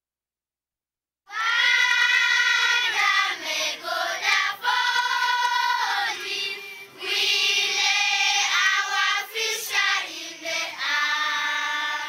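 Children singing together, high voices in sung phrases with short breaks, starting about a second in after silence.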